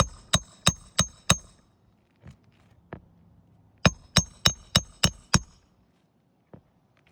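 A hammer driving roofing nails through asphalt shingles into the roof deck. There are two quick runs of sharp, ringing blows about three a second: five at the start and six more about four seconds in, with a couple of light taps between.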